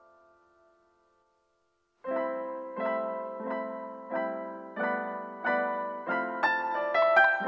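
Background music on a keyboard: a held chord fades away, and after a second or so of silence, chords are struck over and over, about every two-thirds of a second, getting busier near the end.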